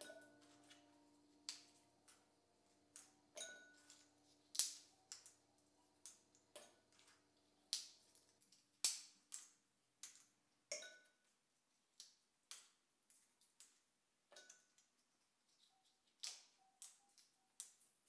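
Pistachio shells cracking open between the fingers, with shells and nuts clicking onto a hard countertop. The clicks come sharp and irregular, often one or two a second.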